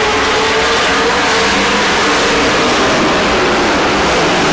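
Race truck engines running hard around the oval as trucks pass: a loud, steady engine drone whose pitch wavers slightly.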